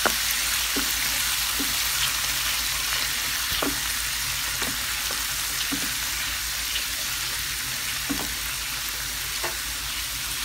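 Minced garlic sizzling steadily in melted butter in a pan while being toasted. A wooden spoon stirring it knocks lightly against the pan every second or so.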